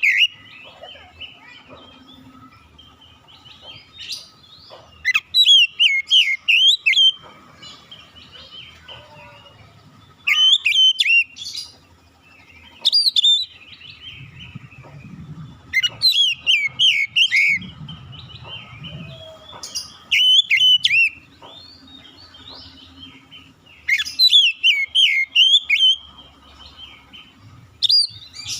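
Oriental magpie-robin (kacer) singing: loud bursts of quick, varied whistled notes, each a second or two long, repeated every few seconds.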